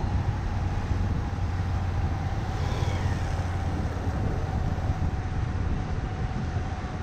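Steady low rumble of a motorbike riding slowly along a street: the engine running evenly with wind buffeting the camera's microphone, and a faint falling chirp about three seconds in.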